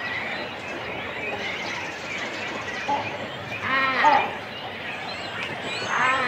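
Cormorant nesting colony: close calls from chicks and adults at the nest over a constant chatter of other birds. Two louder calls stand out, the loudest about four seconds in and another near the end.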